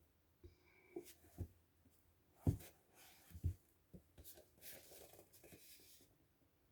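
Hands opening a boxed book set: a few soft knocks and thumps as the books and box are handled, the loudest about two and a half seconds in, along with a few seconds of tearing and rustling of the packaging.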